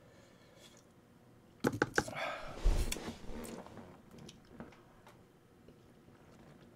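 Disposable utensils clicking and scraping against a plastic takeout tray of tteokbokki: a few sharp clicks about two seconds in, then a rustle with a low bump that fades, and faint small clicks after.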